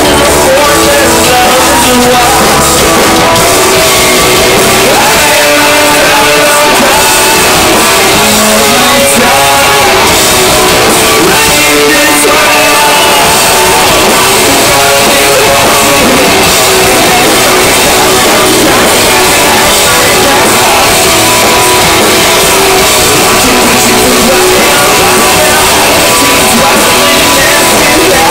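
Live alternative metal band playing loud rock with electric guitars, bass and drums, recorded through a phone microphone in the crowd and pushed to the top of its level without a break.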